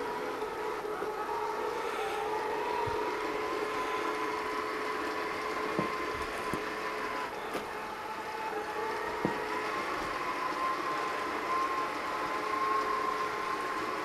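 Home Hero robot vacuum running over carpet: a steady high motor whine over a lower hum, its pitch wandering slightly up and down, with a few faint clicks along the way.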